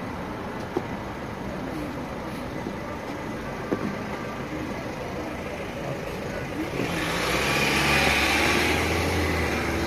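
Street traffic noise, with a motor vehicle passing close by: its engine rumble and tyre noise swell from about seven seconds in, peak about a second later and ease off a little near the end.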